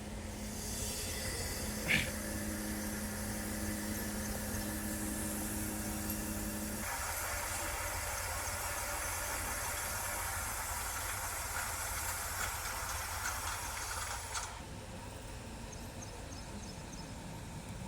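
Heavy machinery running with a low rumble and a steady hum, overlaid by a loud hiss that cuts off suddenly near the end. There is a single sharp click about two seconds in.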